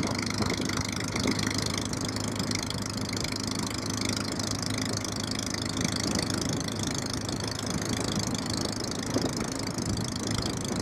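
Yamaha XJ600S inline-four motorcycle engine idling steadily while running on only three cylinders, one spark plug having come out of its stripped thread: a scary sound.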